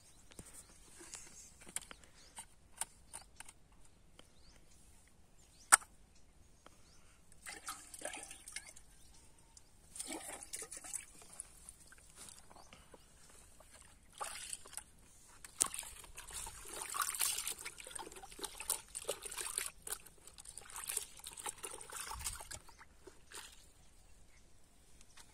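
Water sloshing and trickling in a plastic bucket as pesticide is stirred and scooped with a small plastic cup, in irregular spells. Scattered light plastic clicks and knocks run through it; a sharp click about six seconds in is the loudest sound.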